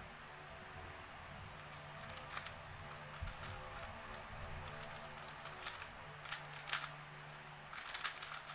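A run of scattered light clicks and taps, few at first and coming more often from about two seconds in, over a faint steady hum.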